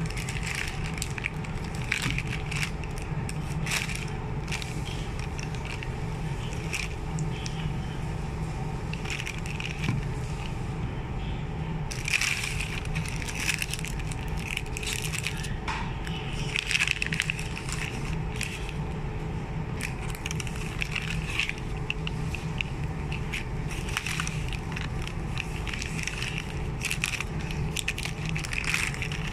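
Thin plastic gift bag and cellophane and foil snack wrappers crinkling and rustling as they are handled and unpacked, in irregular bursts, over a steady low hum.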